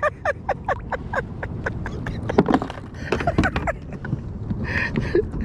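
Irregular quick clicks and knocks, four or five a second, from handling a freshly caught rockfish on the line and in gloved hands aboard a kayak. A few louder knocks come about halfway through.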